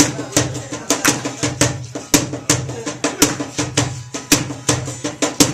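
Live soul/R&B band playing a song, with drums keeping a steady beat over bass and other instruments.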